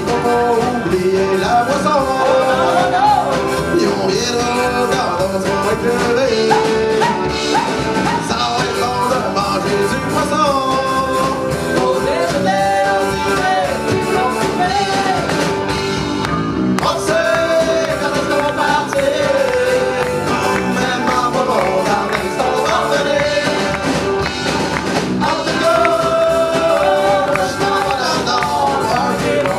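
Live band playing a song: singing into microphones over electric bass, guitar and drums.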